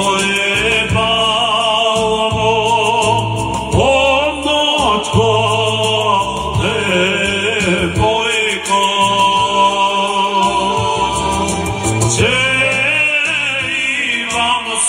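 Male Bulgarian folk singer singing a Rhodope song, his voice wavering and ornamented, over folk instrumental accompaniment played through a PA.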